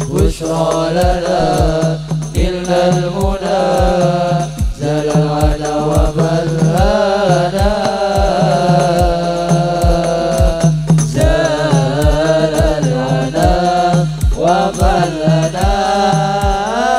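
A group of male voices singing an Arabic sholawat devotional song in hadrah style through a PA, over hand drums that keep a steady beat of about two strokes a second.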